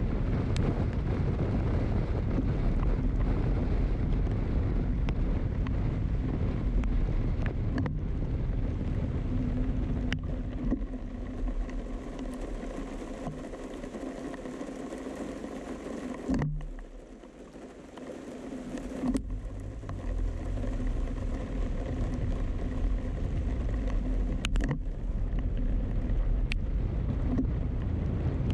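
Vehicle driving on wet city streets, with steady engine and tyre noise and wind rumbling on the microphone. About a third of the way in it quietens to a low steady engine hum while the vehicle stands at a red light, then the noise rises again as it moves off.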